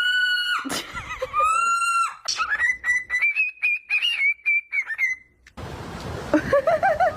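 A pet bird whistling: a few short held notes, then a long wavering whistle, and a lower warbling phrase near the end.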